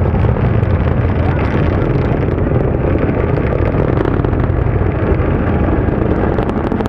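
Falcon 9 rocket's nine Merlin engines heard from miles away after liftoff: a loud, steady, deep rumble with crackle.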